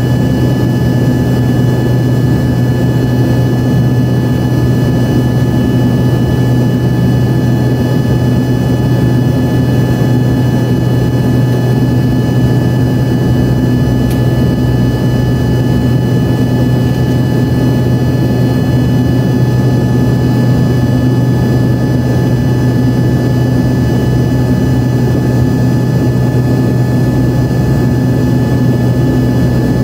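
Steady drone of the Embraer 145's rear-mounted Rolls-Royce AE 3007 turbofans heard inside the passenger cabin: a loud, even low hum with a few steady whining tones above it, holding constant with no spool-up or change.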